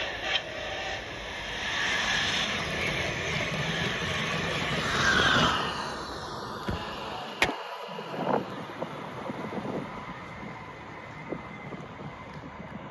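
Battery-powered LEGO passenger train running on plastic LEGO track and passing close: the motor whine and wheel rattle swell over the first few seconds, then the whine drops in pitch as the train goes by. There is a sharp click about seven seconds in, then quieter scattered ticking.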